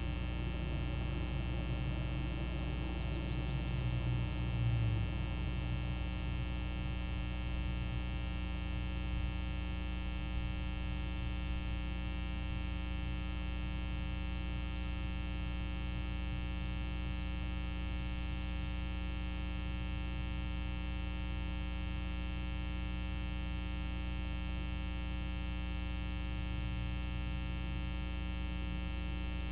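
Steady electrical mains hum and buzz with many evenly spaced overtones, picked up in the audio line of a nest camera, with a few brief low swells in the first few seconds.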